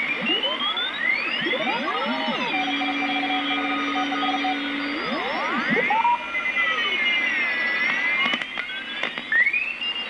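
Homebuilt shortwave receiver being tuned across Morse code signals: their beat-note whistles slide up and down in pitch as the tuning knob turns, over steady band hiss. Near the middle one low tone holds steady for about two seconds before sliding away again.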